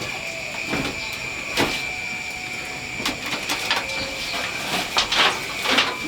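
Irregular knocks and clicks of objects being handled, more frequent in the second half, over a steady high-pitched drone.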